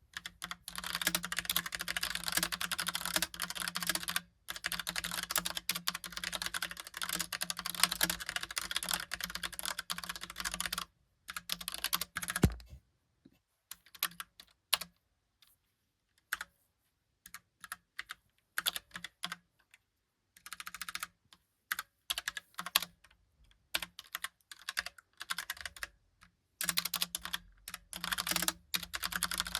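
Logitech Pop Keys mechanical keyboard, with round typewriter-style keycaps, being typed on. Fast, continuous typing for about ten seconds and one louder thump, then scattered single keystrokes with pauses, then fast typing again near the end.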